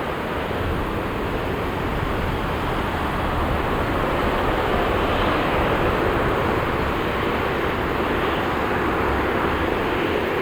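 Jet airliner's engines at takeoff thrust as it accelerates and climbs away: a steady rushing noise that swells slightly midway.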